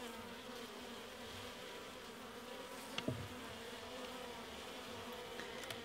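Honey bees buzzing in a steady, faint hum, with a light knock about three seconds in.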